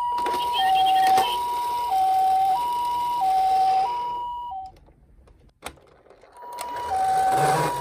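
Toy minicar ambulance's electronic two-tone "pi-po" siren, alternating between a higher and a lower tone about every half second. It stops about halfway through, a single click sounds in the short silence, and the siren starts again.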